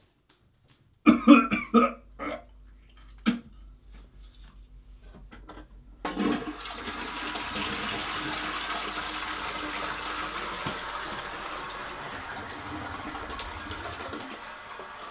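A person retching several times over a toilet, with a sharp click about three seconds in. About six seconds in a toilet is flushed, and the water rushes steadily for about nine seconds.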